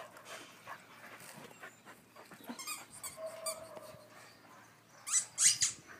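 Dog whining, with two loud, brief, high-pitched yelps near the end.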